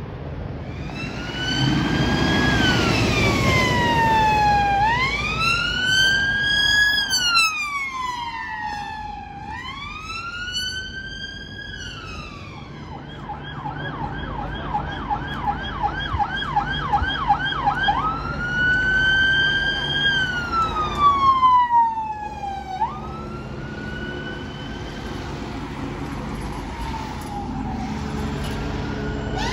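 Emergency vehicle siren. It slowly rises and falls in a wail, switches to a fast yelp of about four cycles a second about 13 seconds in, and returns to the wail about 18 seconds in. After about 23 seconds it fades out.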